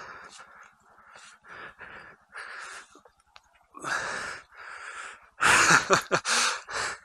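A person breathing hard and fast, a string of loud, noisy breaths about one or two a second. The breaths come heaviest and quickest near the end: out of breath from exertion.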